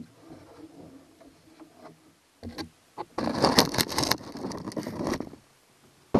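Loud, irregular scraping and rattling of hands and hardware handled right at the microphone under a fiberglass boat bow, starting about three seconds in after a single knock, easing off near five seconds and starting again at the very end.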